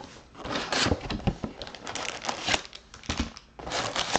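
Plastic shrink wrap and foil card packs of a Panini Prizm basketball hobby box crinkling and rustling as the box is unwrapped and opened by hand, in irregular crackles.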